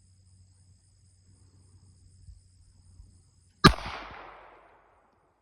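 A single pistol shot from a Ruger LCP Max firing a .380 ACP hollow-point round, about three and a half seconds in, its echo dying away over about a second. Faint insects chirp steadily before the shot.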